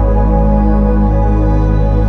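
Background music: slow, sustained ambient chords with a steady low drone.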